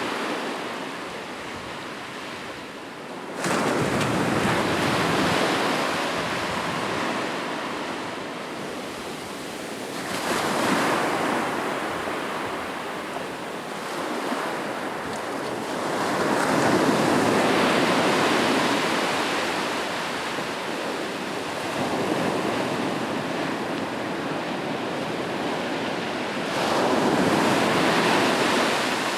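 Ocean surf on a beach: waves breaking and washing in over a steady hiss of water, swelling and ebbing every several seconds. The loudest is a wave crashing with a sudden onset about three seconds in.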